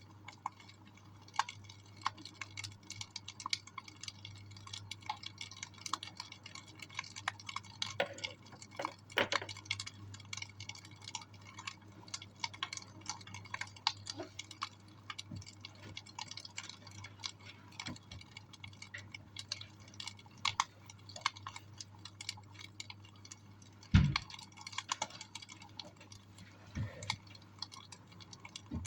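Wood fire in a fireplace crackling with irregular snaps and pops, one louder pop about 24 seconds in, over a low steady hum.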